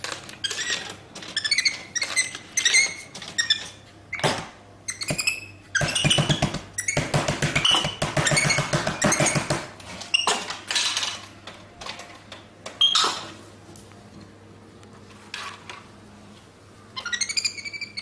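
Capuchin monkey giving short high squeaks and chirps, mixed with clunks and knocks from a drinks vending machine being handled. A stretch of rapid low buzzing runs through the middle.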